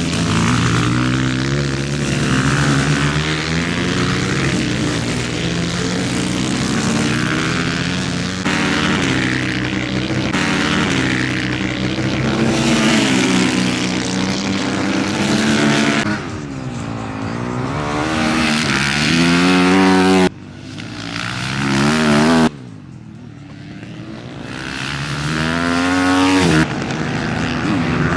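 Supermoto race motorcycle engines revving hard, the pitch rising through the gears and falling away repeatedly as the bikes accelerate and brake. The sound changes abruptly several times, dropping quieter for a few seconds past the two-thirds mark.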